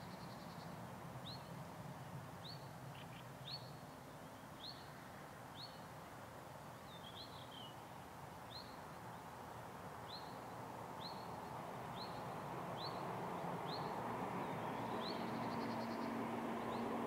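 A bird calling with short rising chirps about once a second, while the rumble of an approaching train grows steadily louder from about ten seconds in.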